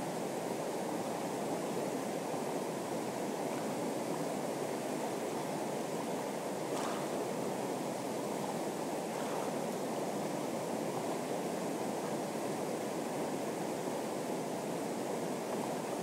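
River rushing over rocks, a steady unbroken water noise. A couple of faint clicks stand out briefly in the middle.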